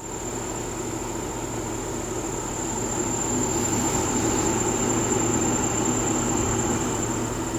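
Dyson Pure Cool Link air purifier fan running, with a steady high-pitched whine over the rush of air. The noise is harsh and grating; the owner suspects it comes from the motor, though Dyson says it is normal and within specification.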